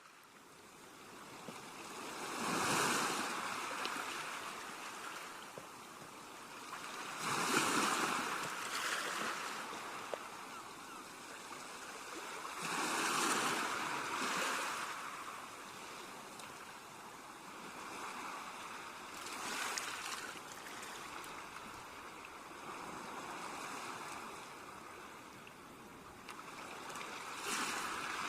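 Sea waves breaking and washing up on the shore: a steady hiss of surf that swells every five or six seconds as each wave comes in.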